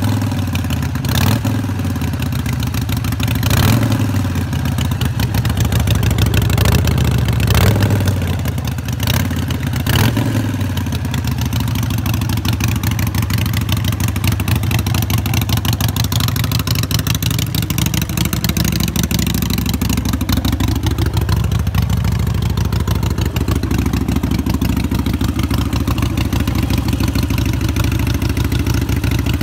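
2015 Harley-Davidson Sportster Iron 883's air-cooled V-twin running through a Vance & Hines exhaust: several short throttle blips in the first ten seconds, then a steady idle.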